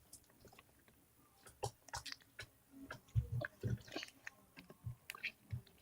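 Slime being squished and pulled by hand, giving irregular sticky clicks and small pops, with a few soft thumps about three seconds in.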